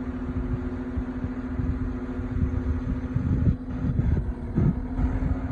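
Skid loader engine running at a steady idle hum. From about three seconds in, irregular low rumbles come and go.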